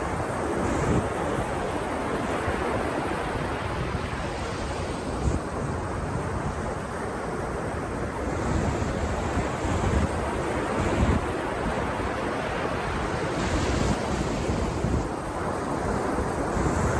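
Ocean surf breaking on a sandy beach, a continuous wash of waves that swells now and then, with wind rumbling on the microphone.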